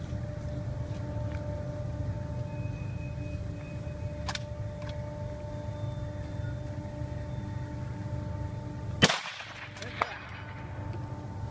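A single precision rifle shot about nine seconds in: a sharp crack with a short tail, and a fainter crack about a second later. A steady low rumble runs underneath.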